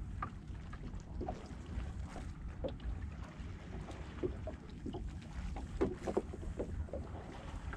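Steady low wind rumble on the microphone, with scattered small clicks and taps from hands rigging a baitfish on a hook.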